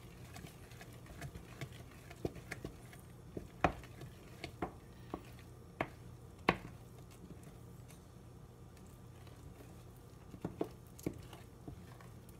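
Irregular light clicks and taps of utensils on kitchenware, with a few sharper knocks, over a steady low hum.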